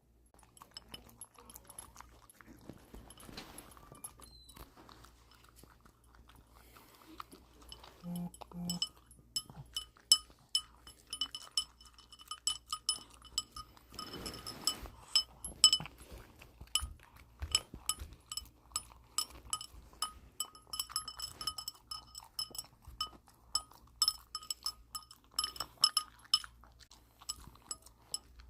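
Dog eating wet food from a bowl, the bowl clinking and ringing again and again as it eats. The clinks are sparse at first and come thick and fast from about ten seconds in.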